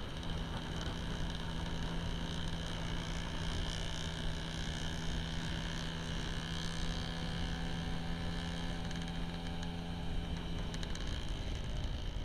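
Motor scooter engine running steadily at cruising speed, heard from the rider's own machine, with wind rumble on the microphone. The engine note holds one steady pitch and shifts near the end.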